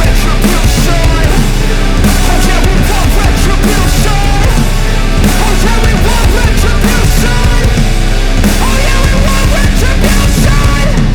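Loud, driving hard rock music with distorted guitars and drums.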